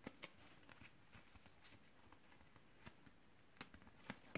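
Near silence, broken by a few faint clicks of trading cards being handled, the last few in the second half.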